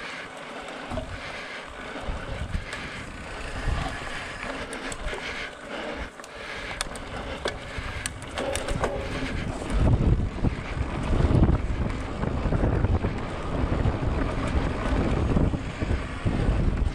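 Wind buffeting the microphone during a bicycle ride, over a steady rush of riding noise with a few sharp clicks in the middle. The low wind rumble gets much heavier about ten seconds in.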